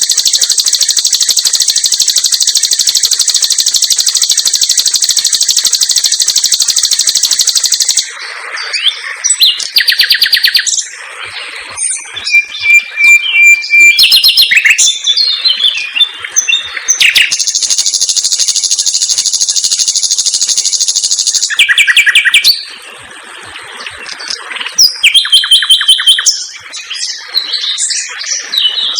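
Common nightingale (sikatan londo) singing: long, fast, tightly packed trills of repeated high notes, broken by varied short phrases, a single held whistle and brief pauses.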